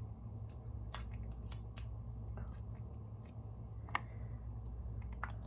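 Sharp clicks and taps of makeup containers being handled, four louder ones among several softer, over a steady low hum.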